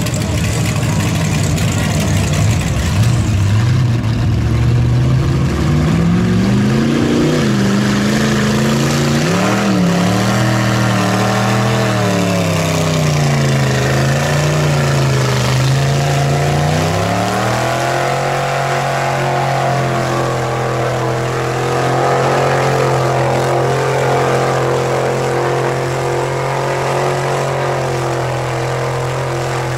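Lifted mud truck's engine at high revs as its giant mud tires churn through a deep mud pit. The revs swing up and down through the first half, then hold steady near full throttle for the rest.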